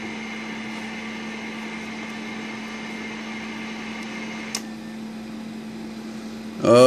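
Steady electrical hum with a faint hiss from the running bench equipment, broken by a single sharp click about four and a half seconds in as the CB radio's microphone is keyed. Near the end a voice starts a loud, held tone into the keyed microphone.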